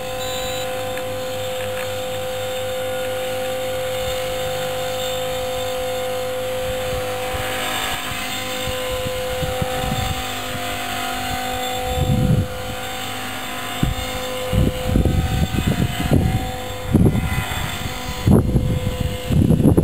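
Motor of the B400 flying model giving a steady, unwavering whine. From about twelve seconds in, gusts of wind buffet the microphone, growing stronger near the end.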